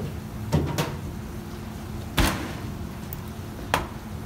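Sharp knocks of a kitchen knife on a plastic cutting board while a sea bream is filleted: two close together, a louder one about two seconds in, and a last one near the end, over a steady low hum.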